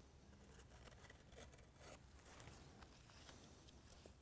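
Near silence, with a few faint scrapes and ticks of a plastic spatula scooping thick ceramic-filled epoxy paste out of a metal tin.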